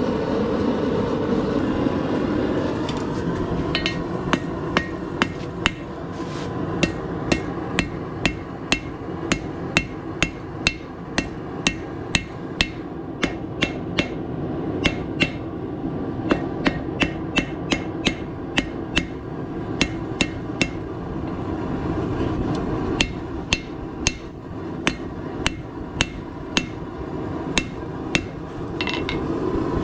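Hand hammer striking hot 1/4-inch square steel bar on an anvil, drawing out a four-way tapered point: a long, even run of sharp ringing blows, about two a second. The blows start a few seconds in and stop shortly before the end, over a steady background roar.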